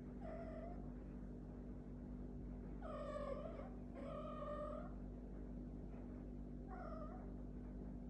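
A cat meowing four times in drawn-out, wailing calls: a short one at the start, two longer and louder ones in the middle, and a short one near the end.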